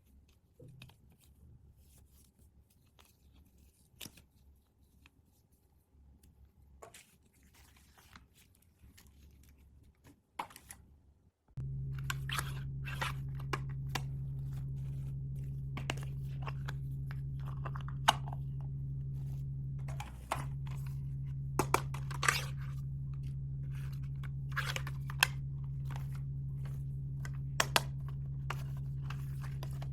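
Plastic packaging being handled and torn open: crinkling, crackling and sharp clicks, sparse and faint at first, then busier. About a third of the way through, a steady low hum comes in abruptly and stays under the crackling.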